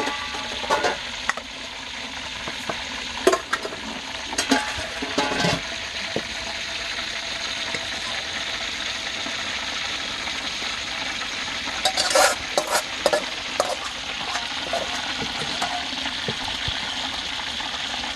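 Metal spoon scraping and clinking against a metal frying pan as fried chicken is spooned out onto a plate. The clinks are scattered and come in a quick cluster about two-thirds of the way in, over a steady sizzling hiss.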